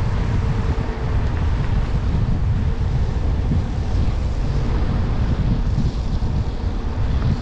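Steady road noise of a Jeep Trailhawk driving on asphalt, heard inside the cabin: a deep, even rumble of tyres and engine with a faint steady hum.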